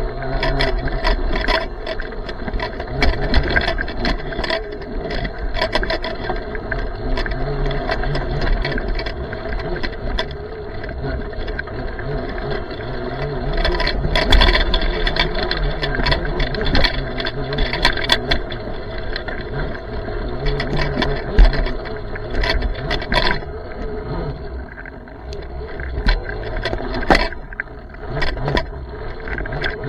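Ride noise from a small electric mini motorcycle on rough ground: a steady motor hum with frequent rattles, clicks and knocks.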